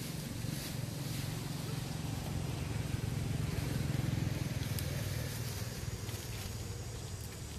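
A motor vehicle engine running, a low steady hum that grows louder around the middle and then eases off.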